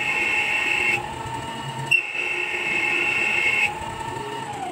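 Small bench-top CNC lathe running as it turns a metal chess piece. The spindle gives a steady whine, and a higher whine comes in twice, for about a second and then for nearly two seconds. Near the end the spindle's tone falls as it slows toward a stop.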